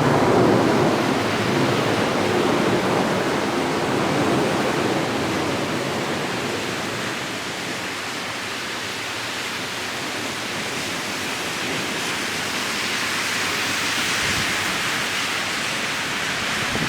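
Heavy rain pouring steadily, with a low rumble that fades away over the first few seconds.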